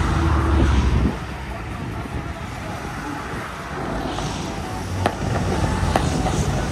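A low engine hum that stops about a second in, then an outdoor background of traffic-like noise and voices, with the first sharp firework bangs about five and six seconds in.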